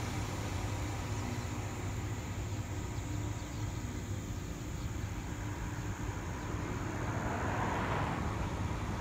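Outdoor ambience with a steady low rumble, and a car passing on the road, swelling and fading about seven to eight and a half seconds in.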